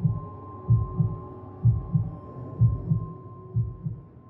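A heartbeat sound effect: paired low lub-dub thumps about once a second under a steady thin humming tone, growing fainter near the end.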